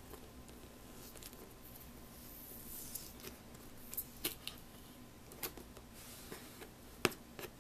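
Fingernails picking and scratching at the lid of a cardboard box, with scattered faint clicks and taps, the sharpest near the end.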